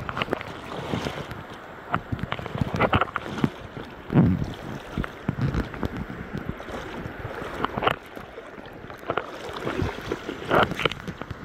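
River water splashing and sloshing irregularly as someone wades through the current, over a steady rush of moving water.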